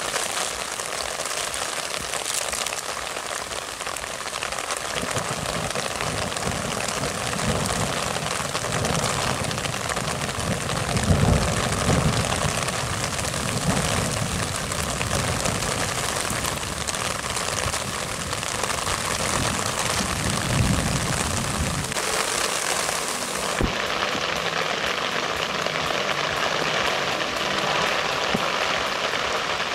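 Heavy rain downpour hissing steadily. Low rumbles build and fade through the middle, the loudest about eleven seconds in, with a shorter one near twenty seconds.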